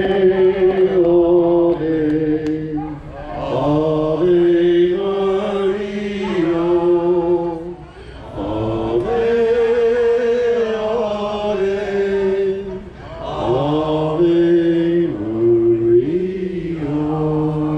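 A group of men singing a slow hymn in unison, holding long notes in phrases a few seconds apart.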